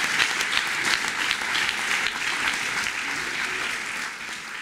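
Audience applauding, gradually fading toward the end.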